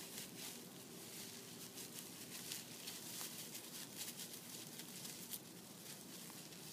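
Faint, irregular rustling and crackling of dry leaf litter and mulch as a small dog moves over it.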